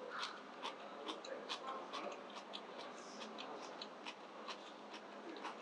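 Faint, irregular light clicks and ticks of tableware, about three or four a second, over a steady low hush of room ambience.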